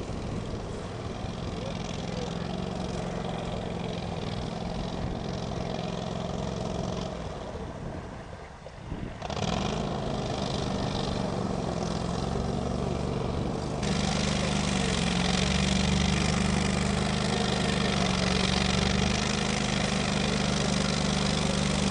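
Argo Avenger amphibious UTV's engine running steadily as the vehicle pushes through reeds. About two-thirds of the way through, the engine grows louder and a rushing, splashing wash of water joins it as the vehicle drives into open water.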